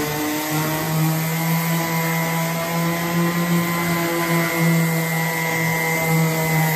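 Bauer random orbital sander running steadily with its pad on a wooden board: a steady motor hum with a higher whine over the rasp of sandpaper on wood.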